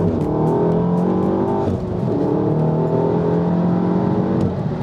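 Volkswagen Golf R Mk7's turbocharged 2.0-litre four-cylinder engine accelerating hard, heard from inside the cabin. The revs climb, fall sharply at a manual upshift just under two seconds in, then climb again until they drop once more near the end.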